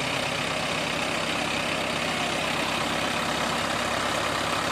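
Mahindra farm tractors' diesel engines idling steadily as they stand hitched together, the sound even and unchanging.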